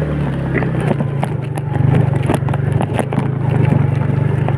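Small motorcycle engine pulling steadily in first gear up a rough mountain road, with frequent short clicks and rattles from the ride over the uneven surface.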